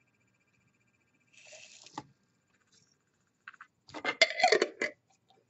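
Dried rose petals rustling faintly as they are tipped from a hand into a small glass jar. Near the end comes a quick cluster of knocks and clinks as the glass jar is handled and set down on the table.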